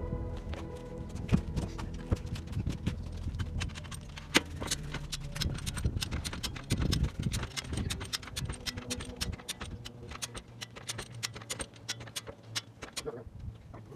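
Hand tools being worked on a wheel and tire, heard as a run of sharp, irregular metal clicks and knocks, a few a second. This is the struggle to break a stubborn tire bead loose by hand.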